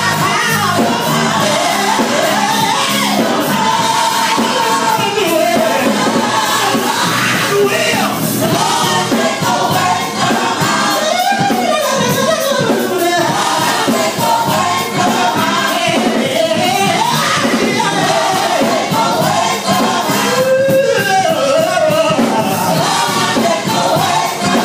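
Live gospel music: a man singing into a microphone over a band, with the congregation's voices joining in.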